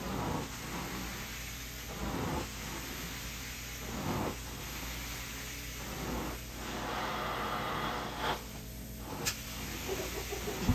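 Carpet cleaning equipment: a steady low hum under an even hiss, with a swish about every two seconds, a louder hissing stretch about two-thirds of the way through, and one sharp click near the end.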